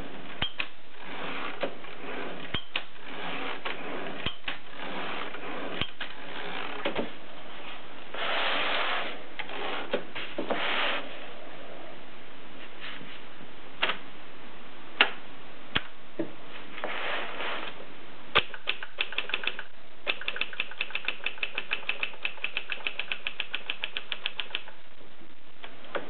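Vintage portable manual typewriter: scattered single clicks and short rustling stretches, then, about three-quarters of the way in, a fast run of key strikes, about eight a second, for four or five seconds.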